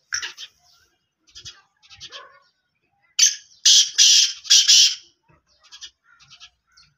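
Black francolin calling: four loud, harsh, rasping notes in quick succession a little past the middle. Fainter short chirps of small birds come before and after.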